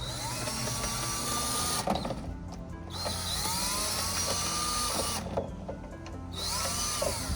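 Cordless drill/driver running in three bursts, its motor whine rising at each start, as it backs mounting screws out of an old hose holder.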